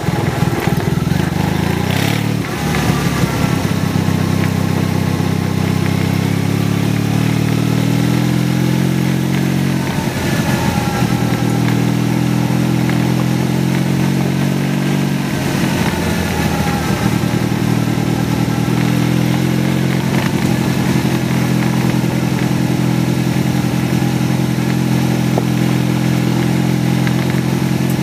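Motorcycle engine running steadily under way, its pitch dipping and recovering briefly about two, ten and sixteen seconds in. There is a single knock about two seconds in.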